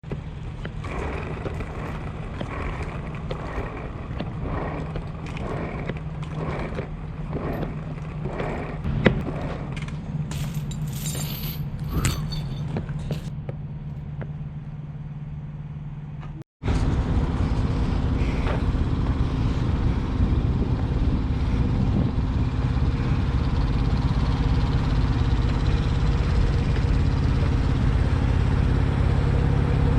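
Semi truck's diesel engine running steadily, with a series of short repeated sounds over it in the first half. About halfway the sound cuts off for an instant and comes back louder and noisier.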